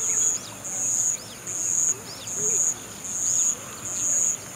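An insect's shrill, high buzz in regular pulses, each about half a second long, repeating a little more than once a second, with short high chirping calls scattered over it.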